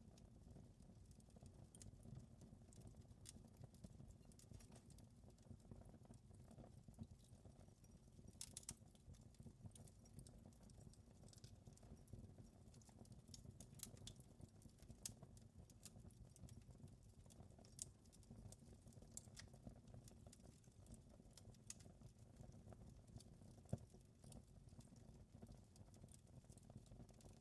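Faint wood fire crackling in a fireplace: irregular sharp snaps and pops over a low steady rumble of the burning, with one louder pop near the end.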